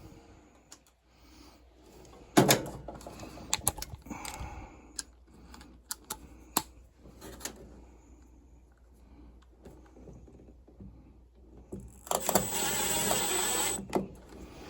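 Metal parts and hand tools being handled during furnace work: scattered clicks, clinks and knocks, the sharpest about two seconds in. Near the end comes a steady, hissing noise lasting about two seconds.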